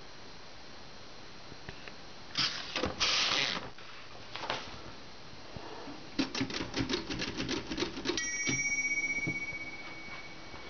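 Vintage Royal manual typewriter: a clatter about two seconds in, then a fast run of about a dozen keystrokes. The carriage's margin bell rings once about eight seconds in and fades slowly.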